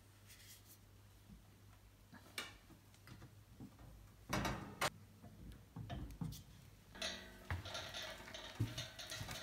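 Light metal clicks and knocks from the sheet-metal base and latch of a round kerosene heater being handled, with two sharper clicks about four and a half seconds in. About seven seconds in the room sound changes and a few light knocks follow.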